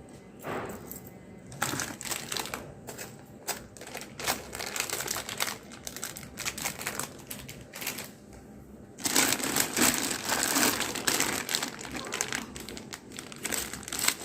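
Plastic packaging crinkling as it is handled, in irregular crackles that grow louder and denser about nine seconds in.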